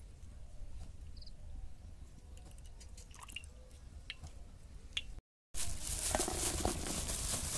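Cooking oil poured in a thin stream into a large empty kadai, faint, with a few small clicks. About five seconds in, after a brief break, comes the louder grainy sound of gram flour (besan) being tipped into a steel bowl.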